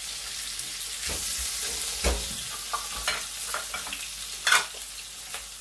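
Sliced red onion, ginger and garlic sizzling in hot oil in a wok while tongs stir them, clicking and scraping against the pan several times, the loudest click near the end. The aromatics are being sautéed until lightly browned and fragrant.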